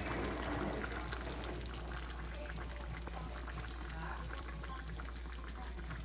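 Tomato sauce of a chicken afritada simmering in an open frying pan: a steady bubbling hiss with many small pops, over a steady low hum.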